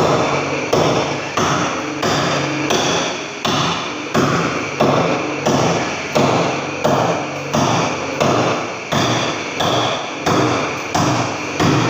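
Evenly spaced blows of a hand tool struck by hand into a plastered masonry wall, about three strikes every two seconds, each a sharp knock with a short ring, pecking small pits into the wall without a power tool.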